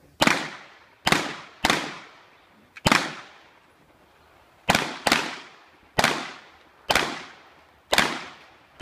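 Tanfoglio pistol fired rapidly, about nine shots in quick strings with a pause of nearly two seconds in the middle, each shot cracking sharply and trailing off in a short ringing tail.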